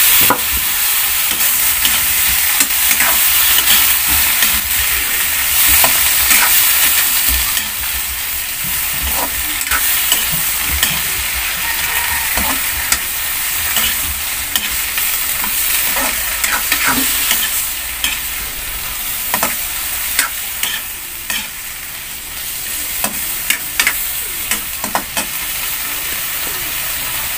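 Shrimp frying in butter with garlic and onion in a metal wok: a loud steady sizzle, with repeated scrapes and clinks of a metal spatula stirring them. The sizzle is strongest in the first several seconds after the shrimp go in and eases a little after.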